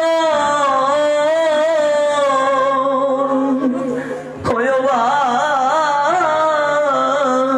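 A man singing a Bengali devotional kirtan melody, with long held notes ornamented by wavering turns, over a steady low hum. A little past halfway the voice breaks off briefly with a sharp click, then the singing resumes.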